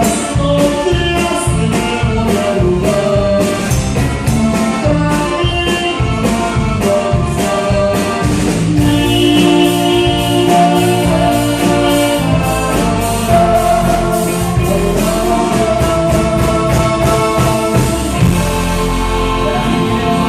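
A live band playing a song with singing over a steady beat.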